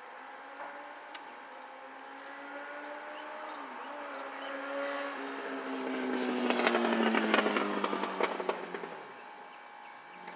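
Carpenter bee buzzing as it works its way out of a hole it has bored in a car's vinyl door panel: a low drone that slowly falls in pitch and grows louder. Over its last few seconds it comes with crackling and clicking, then it stops about nine seconds in.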